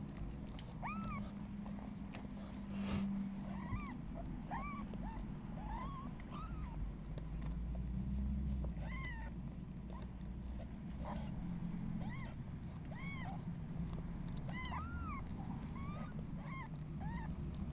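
Newborn kittens mewing: short, high, arched squeaks, roughly one a second with pauses, over a low steady hum. These are the cries of kittens hours old jostling to nurse, one of them not yet feeding.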